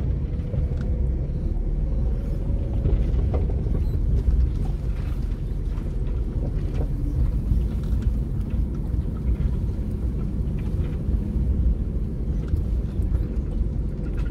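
Four-wheel drive on a bush track: a steady low rumble of engine and tyres, with a few light knocks.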